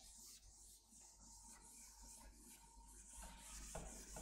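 Faint, rhythmic swishing of a duster wiping chalk off a chalkboard, about two to three strokes a second.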